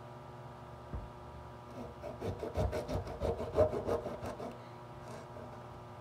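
A knife sawing through a green orange, a run of quick back-and-forth rasping strokes lasting about three seconds, after a small knock about a second in.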